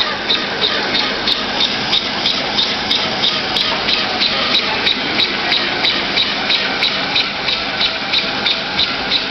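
Chocolate double-twist wrapping machine running: a steady mechanical clatter with a sharp click at an even beat, about three a second.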